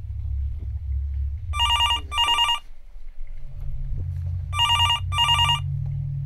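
Telephone ringing twice with a double ring, two short bursts per ring, over a low steady hum.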